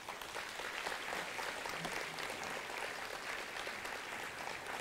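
A large audience applauding, many hands clapping in a steady, dense patter.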